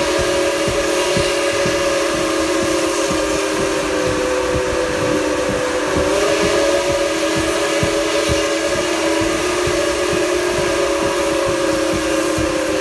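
The chime whistle of Nickel Plate Road 765, a 2-8-4 Berkshire steam locomotive, blowing one long, steady chord that wavers slightly in pitch about halfway through. Beneath it is a fast, low pulsing from the moving train.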